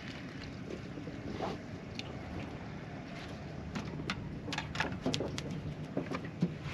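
Small fishing boat ambience: a steady low rumble, with a quick run of sharp clicks and knocks about halfway through and again near the end.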